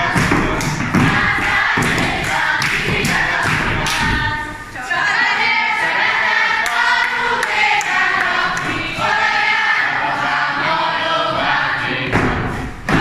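A group of young folk dancers singing together in unison while they dance, with their feet stamping and thudding on the floor. The stamping is heaviest in the first few seconds and again near the end; the singing is clearest in the middle.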